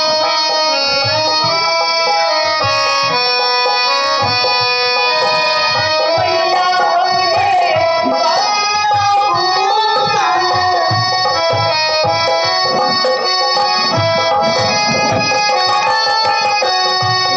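Traditional Indian stage music: a harmonium holding steady chords over a tabla beat, with a wavering melody line in the middle.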